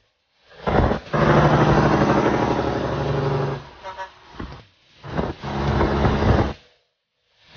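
Diesel semi-truck engine droning at highway speed under rushing road and wind noise. It comes in two stretches that cut off abruptly into silence.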